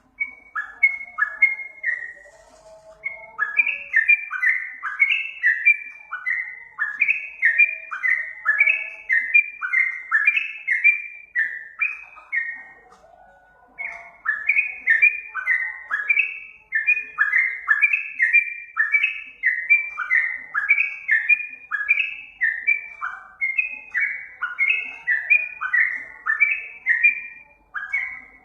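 Yellow-vented bulbul (trucukan) singing: a long, fast run of bubbly, repeated chirping phrases, breaking off briefly about halfway and then going on.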